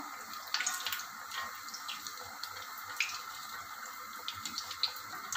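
Rava paniyaram batter deep-frying in hot oil: a steady sizzle with scattered sharp pops and crackles, as the ball puffs up and browns in the oil.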